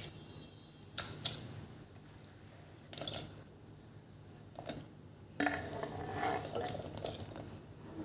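Kitchen handling sounds: a few sharp knocks of dishes or utensils, then about two seconds of running water from about five seconds in.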